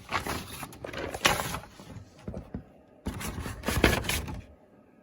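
Paper rustling and crinkling as a printed wiring schematic is handled, in two spells of a second or so each.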